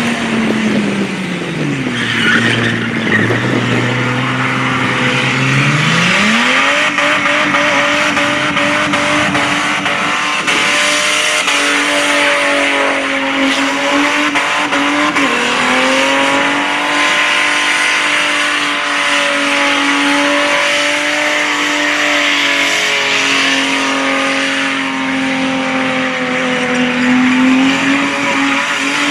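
A burnout car's engine eases off to low revs in the first seconds. About six seconds in it climbs and is held at high, steady revs with small dips, over the hiss and squeal of the rear tyres spinning and smoking on the pad.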